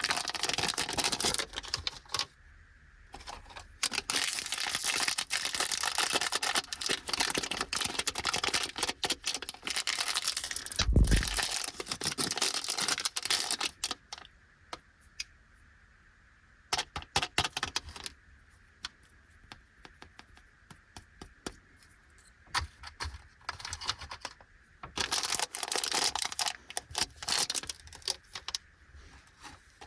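Plastic snack wrapper crinkling and tearing as a packaged lollipop is unwrapped by hand, with one dull thump about eleven seconds in. Then come scattered light clicks and taps, and near the end more crinkling of the wrapper.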